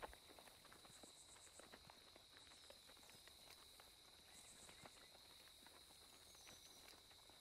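Faint outdoor ambience: a steady high insect drone with a short high trill twice, and soft irregular hoof steps of horses walking on dirt.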